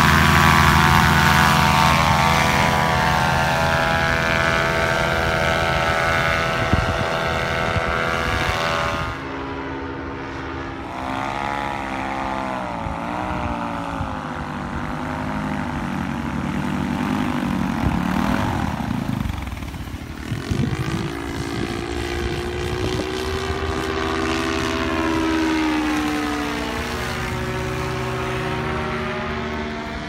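Paramotor engine and propeller running, its pitch and loudness sliding up and down several times.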